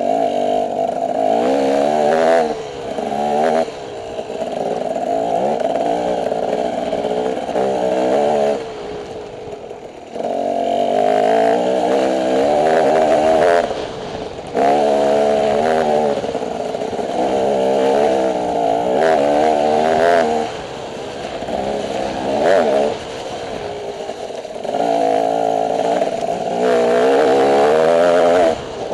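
Off-road motorcycle engine revving hard, its pitch climbing as it accelerates and falling away each time the throttle is shut, over and over as the rider works along the trail.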